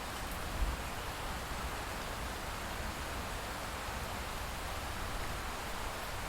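Steady rain falling, an even, continuous hiss, with a brief low thump about half a second in.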